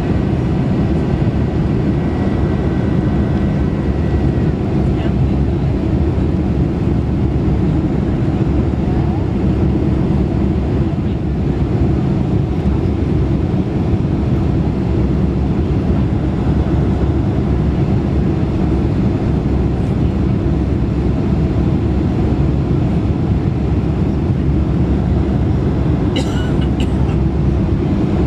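Steady low roar inside the passenger cabin of a Boeing 747-400 descending on approach, the noise of its engines and the airflow over the fuselage. A short sharp click sounds about two seconds before the end.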